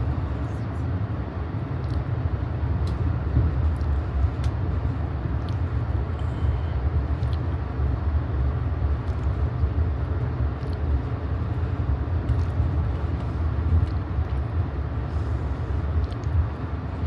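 Steady low rumble of an Amtrak passenger coach running along the track, heard from inside the car, with a few faint clicks and rattles scattered through it.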